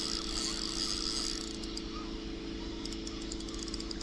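Spinning reel being cranked to retrieve a hooked cuttlefish: a gear whir for the first second and a half, then light clicking, over a steady low hum.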